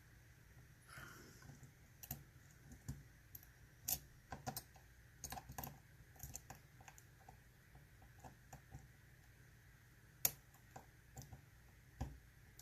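Faint, irregular metallic clicks and scrapes of a dimple-lock pick working the pins of a Mul-T-Lock Interactive dimple padlock, with a few sharper clicks about 4 and 10 seconds in.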